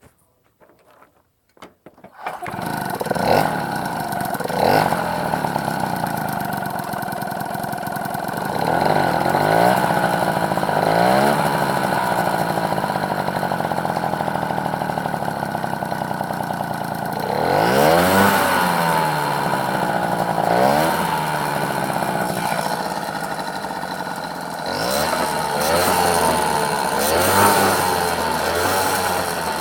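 Peugeot 103 Vogue moped's 49 cc two-stroke single-cylinder engine starting about two seconds in, then running with several blips of the throttle that rise and fall in pitch. The owner hears a metallic click-click that grows with the revs, and fears the piston is striking the cylinder head, a squish clearance problem.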